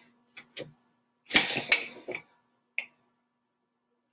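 Steel pipe wrench clinking and scraping against a PVC cleanout adapter as it is set on and turned to tighten the threads: two light clicks, a louder clatter a little over a second in, and one more click near the end.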